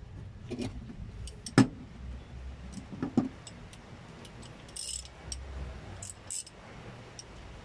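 Scattered light metallic clicks and clinks of small metal objects being handled. The sharpest click comes about a second and a half in, and there is a brief jingle near the middle.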